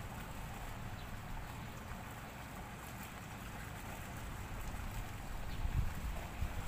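Outdoor ambience: a steady soft hiss with low wind rumble on the microphone, growing gustier near the end.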